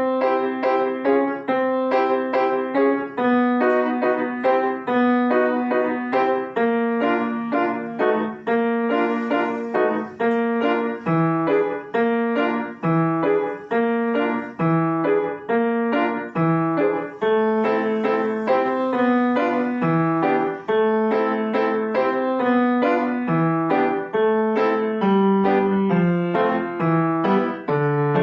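Solo piano playing a toccatina: a fast, steady stream of short, crisply repeated notes.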